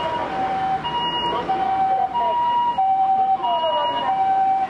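Japanese emergency vehicle's two-tone siren alternating between a high and a low note, each held a little over half a second, in the 'pee-poh' pattern used by Japanese ambulances, sounding as the unit responds to a call.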